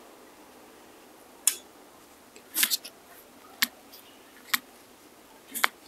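Sharp clicks from the adjustable stroke ring of a wireless tattoo pen machine being turned through its settings, about one click a second with one double click.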